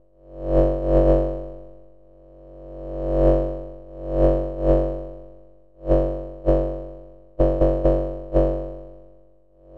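Modular synthesizer oscillator tone at one fixed pitch, gated through a VCA by a Make Noise Contour envelope generator, so the same note keeps sounding and fading. Some notes swell in slowly over a second or so, and others start sharply and decay away, coming at irregular intervals with a quick cluster of short ones near the end.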